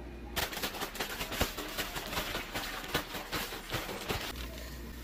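Plastic zip-top bag crinkling and rattling in rapid, irregular crackles as crappie fillets are shaken in seafood breading mix. It starts about half a second in and stops suddenly a little after four seconds.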